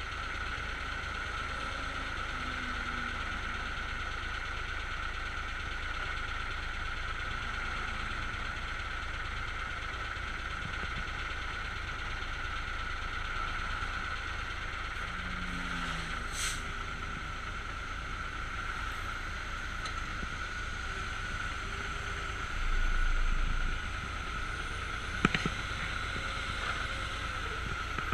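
Heavy diesel machinery, a Komatsu excavator working beside a loaded dump truck, running as a steady drone. Near the end there is a dull low thud lasting about a second, then a couple of sharp clicks.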